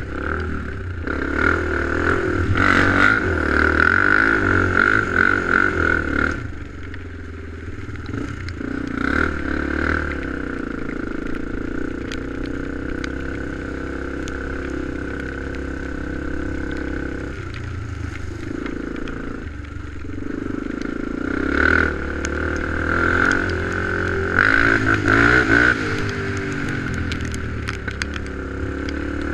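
ATV engine running while riding, revving up and easing off: louder for the first few seconds and again near the end, quieter through the middle, with scattered knocks from the ride.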